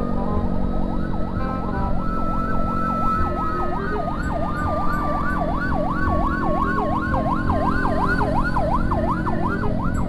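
Ambulance siren in a fast yelp that rises and falls about three times a second, starting about a second and a half in. A steady siren tone and the low rumble of motorcycle engines and road noise run underneath.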